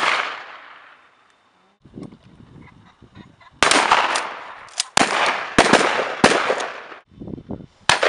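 Shotguns firing at birds overhead: the echo of a shot dies away, and after a lull of about two seconds a rapid string of shots from several shooters begins, some close and loud, some fainter and farther off, each trailing an echo.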